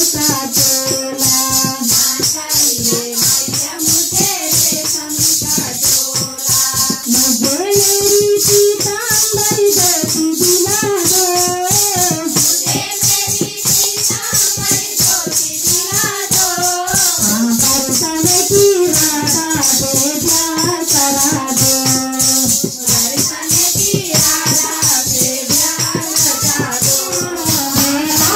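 Kirtan: devotional hymn singing over a fast, even beat of hand percussion with a bright shimmer on top.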